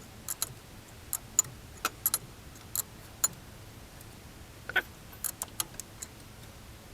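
Irregular sharp metallic clicks and ticks of a wrench working a threaded crank gear install tool, pressing the new timing gear onto a Chevy 350's crankshaft.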